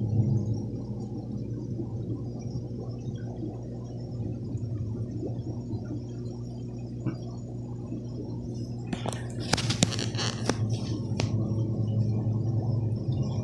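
Aquarium pump humming steadily. About nine to eleven seconds in, a quick cluster of sharp clicks and rattles.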